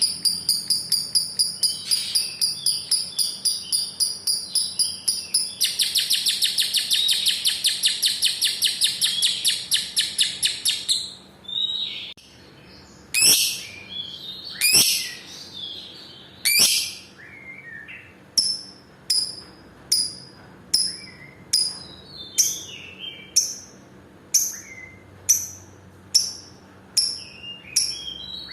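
Lovebird's long 'ngekek' chatter: a fast run of high, shrill repeated notes that swells into a dense rapid trill, then breaks into separate sharp falling chirps, a little more than one a second.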